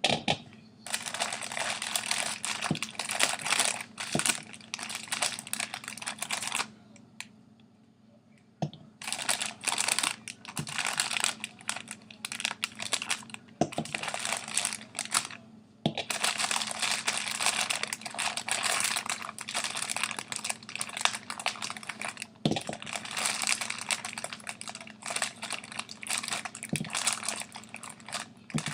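Grapes being handled and added to a fruit salad: dense rustling and clicking, with two short pauses.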